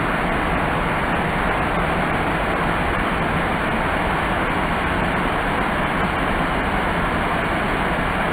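Waterfall pouring over rock ledges, its white water tumbling down the rocks below: a loud, steady rush of falling water.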